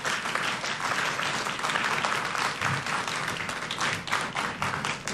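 Audience applauding: a dense patter of many hands clapping that thins into scattered separate claps near the end.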